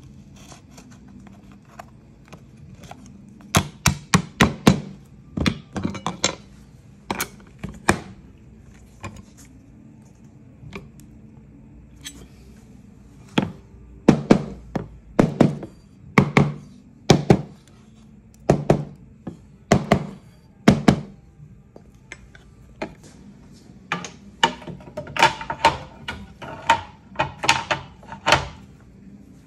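Sharp knocks and clacks in quick clusters from a letterpress form being locked up: metal furniture and quoins knocking in a steel chase as a quoin key tightens them, then the chase knocking into the bed of a Chandler & Price platen press near the end.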